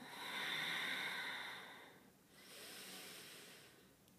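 A woman breathing slowly and audibly through a held pose: a louder breath of about two seconds, then a softer one.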